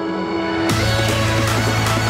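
Electronic trap music. A held synth note plays with the bass cut out, then about three-quarters of a second in the full beat drops back in with a heavy sustained bass note and dense, busy high percussion.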